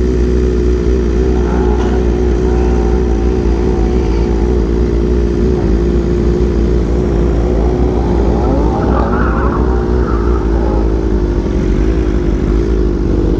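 Motorcycle engine running steadily with a low rumble under it. Another engine's revs rise and fall briefly about eight to eleven seconds in.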